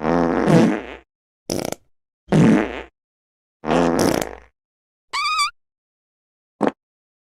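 Fart sound effects played one after another, six in about seven seconds, with dead silence between them. Most are low and buzzing, up to a second long and trailing off; about five seconds in comes a short, high, warbling squeak, and near the end a very brief one.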